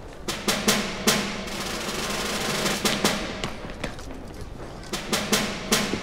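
Tense background music built on snare drum rolls and sharp drum hits over a low held note.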